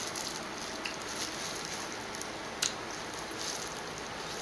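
Steady whoosh of an electric fan running, with a few short clicks from eating and handling food, the sharpest about two and a half seconds in.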